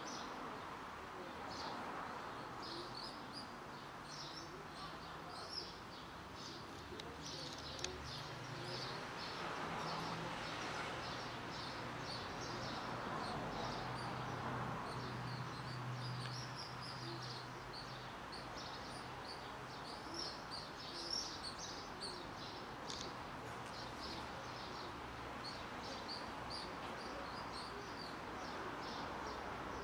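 Small birds chirping again and again, short high chirps throughout, over a steady low background hum.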